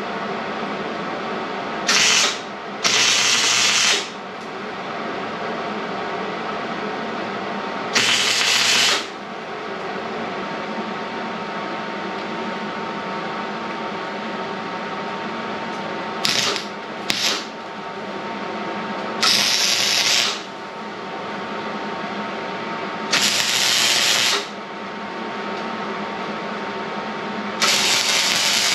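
Wire-feed welder laying a series of short tack welds on steel, each arc crackling for about a second before it stops, eight in all with two brief blips among them, over a steady hum.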